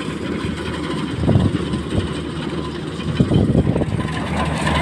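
Steady low machine hum, with a few short noisy splashing or rustling strokes about a second in and again around three seconds in.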